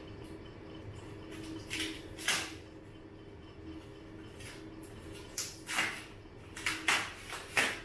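Plastic packaging wrap rustling and crinkling in a few short bursts, louder near the end, as it is handled and pulled off a bicycle, over a faint steady hum.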